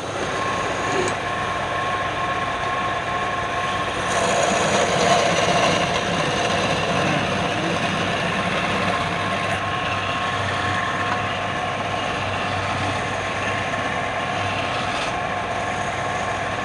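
Wood lathe running steadily, with a constant motor whine and hum, a little louder between about four and six seconds in.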